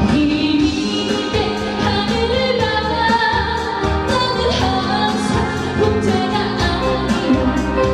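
A woman singing a Korean pop ballad over band accompaniment, with a steady drum beat under held chords.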